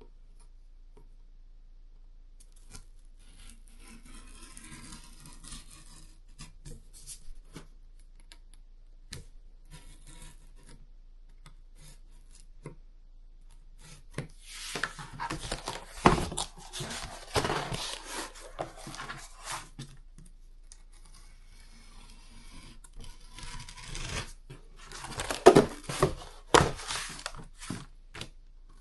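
X-Acto hobby knife cutting through cardboard: quiet scratchy strokes at first, then two louder stretches of rough, scratchy slicing, one about halfway through and one near the end.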